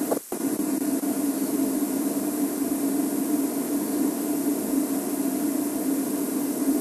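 Steady hum with hiss, briefly cutting out just after the start.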